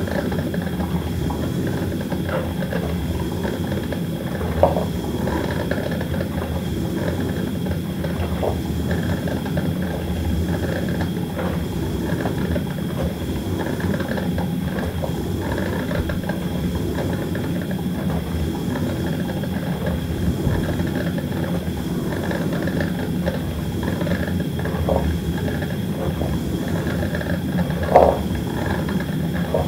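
Coffee maker brewing: a steady bubbling hiss of water heating and steaming, with occasional short louder pops, the strongest near the end.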